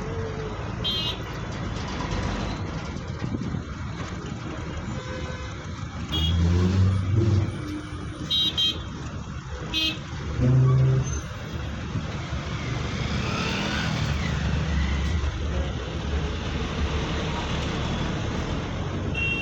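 Road traffic noise: engines rumbling steadily, with short vehicle horn toots several times and two louder low swells as heavy vehicles go by.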